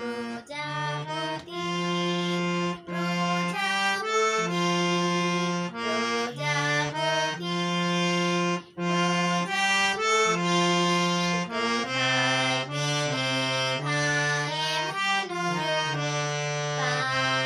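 Harmonium playing a melody in held notes, each note or chord sustained for about half a second to a second, with short breaks between phrases.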